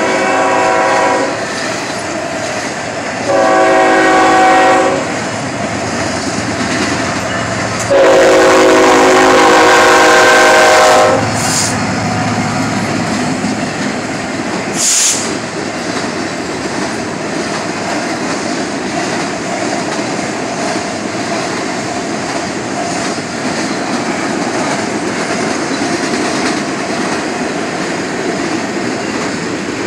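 Freight train diesel locomotive air horn sounding three blasts, the last about three seconds long and the loudest. Then the Union Pacific and Norfolk Southern diesel locomotives pass, with a brief hiss about fifteen seconds in, and a string of tank cars rolls by with a steady rumble and wheel clatter.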